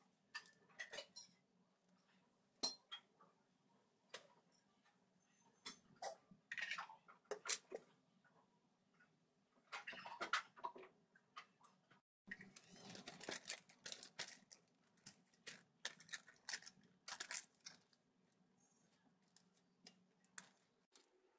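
Thin plastic bag crinkling and rustling in short, irregular bursts as it is handled, with a faint steady low hum underneath.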